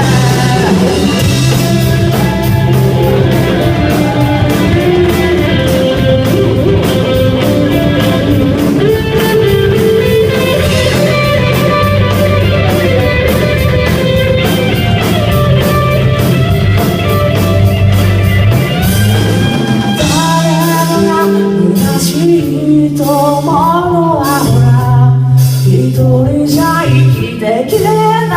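Rock song with singing, guitar and drums; the backing thins out about twenty seconds in.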